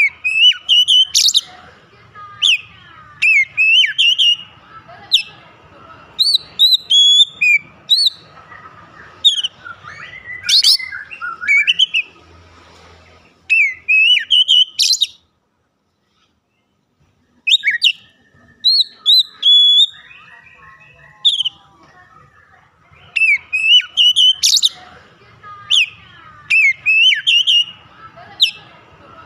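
Male oriental magpie-robin in full song: rapid loud phrases of sharp whistles, chirps and sweeping notes, with a break of about two seconds near the middle.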